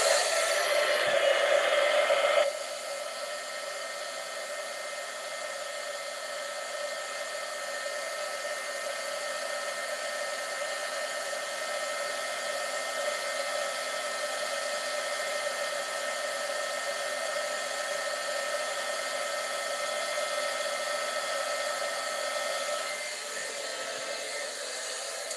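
Handheld embossing heat tool blowing steadily, an even rush of air with a faint motor whine. It drops in level about two and a half seconds in and switches off at the end. It is heat-embossing a stamped sentiment, melting the embossing powder.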